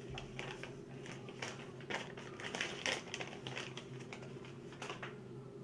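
Faint rustling and a few light taps as a paper invoice is handled and set down, over a steady low hum.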